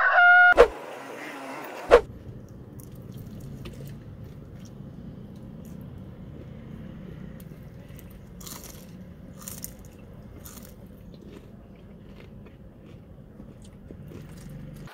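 The tail of a rooster crow sound effect and two sharp clicks, then crispy fried chicken being bitten and chewed, with short crunches of the fried skin three times around the middle, over a steady low rumble.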